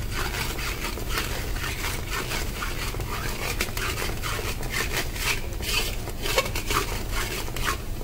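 A metal spatula scraping and stirring thick khoa around a metal kadhai in quick repeated strokes, a few a second, as the khoa is roasted in ghee.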